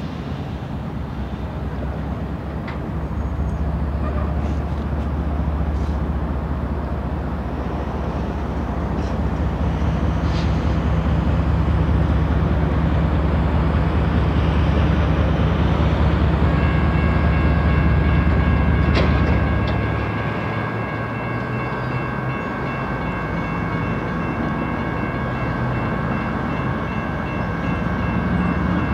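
Diesel engine of a GE ES44DC freight locomotive, a GEVO-12 V12, running with a deep steady rumble as the train approaches slowly; the rumble eases about 20 seconds in as the throttle comes back. From a little past halfway, a level-crossing warning bell rings steadily over it.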